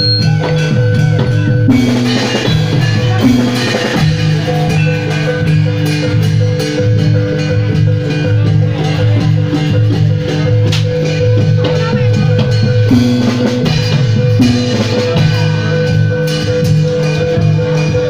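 Loud live Javanese gamelan music for a jathilan dance: mallet-struck bronze metallophones ringing over a steady drum rhythm.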